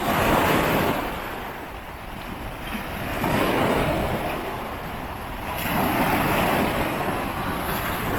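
Ocean surf rolling in: three swells of wave noise a few seconds apart, each rising and falling away, over a low rumble of wind on the microphone.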